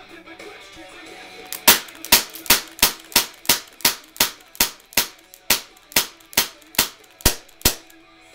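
TSD M9 airsoft pistol firing about sixteen shots in a steady string, roughly two to three a second, starting a second and a half in and stopping near the end as the magazine runs empty.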